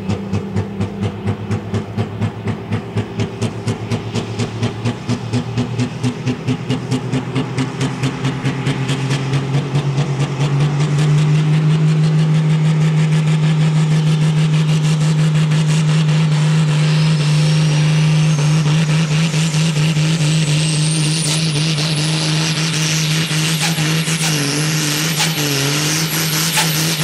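Super farm class pulling tractor's turbocharged diesel engine pulling a weight-transfer sled. It pulses about twice a second at first, then about ten seconds in revs up to a steady, loud high-rpm note, and a high whine climbs in pitch through the second half.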